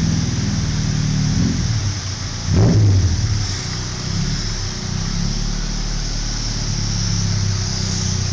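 Tofaş sedan's engine running through a loud exhaust at low revs, with a short rev about a second and a half in and a sharper, louder rev blip about two and a half seconds in, then settling back to a steady low note as the car pulls away.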